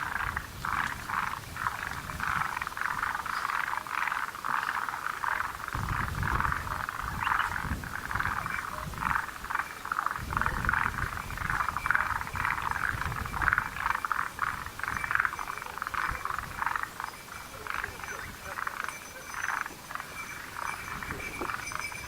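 Chorus of forest green tree frogs and Japanese mountain brown frogs: many short, rapid calls overlapping without a break. A low rumble comes and goes in places.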